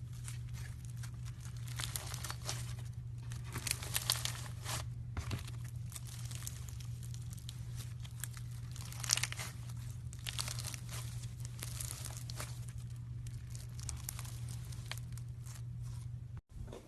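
Slime being squeezed and worked by hand, giving dense crackling, crinkling pops with a few louder ones. A steady low hum runs underneath, and the sound cuts out briefly near the end.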